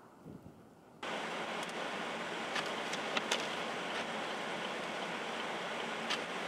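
Strong wind driving blowing snow across a road, heard as a loud, steady rushing noise on the microphone that jumps up suddenly about a second in, with a few sharp ticks over it.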